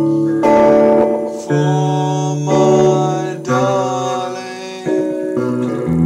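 Acoustic guitar played in chords that change about once a second, with a man's voice singing softly along.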